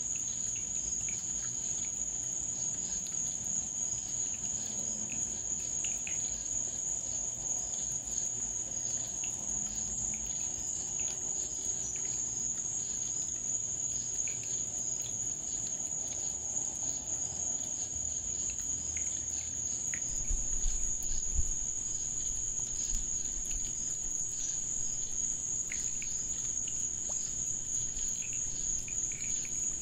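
Night chorus of crickets: one steady, unbroken high-pitched trill, with a few faint ticks and some low bumps about twenty seconds in.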